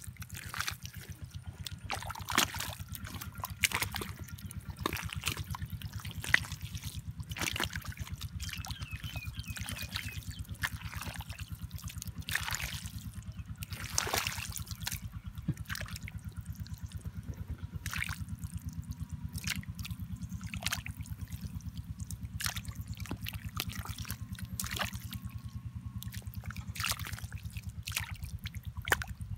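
Muddy water trickling and dripping in a shallow, nearly drained pool, with scattered small splashes and ticks over a steady low hum.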